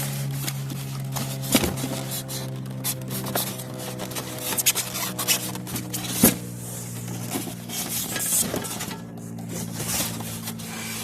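Scraping, rubbing and knocking as a boxed window air conditioner and its parts are handled and unpacked, with a sharp knock about a second and a half in and a louder one about six seconds in. A steady low hum runs underneath.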